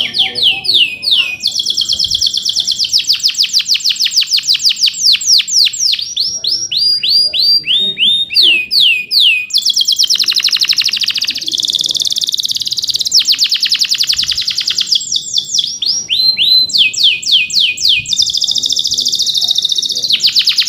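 Male canary in full song: a long, unbroken run of rapid trills and chirps, each phrase a fast train of repeated downward-sweeping high notes that switches to a new phrase every second or two.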